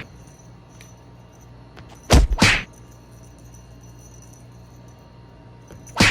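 Short whoosh-and-whack sound effects: two quick hits in a row about two seconds in, and another right at the end, over a low steady background.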